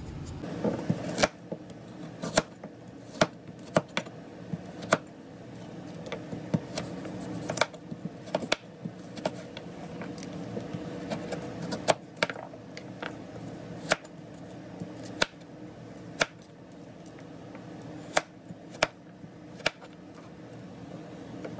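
Knife cutting a carrot, the blade knocking on the board in irregular single strokes, about one a second.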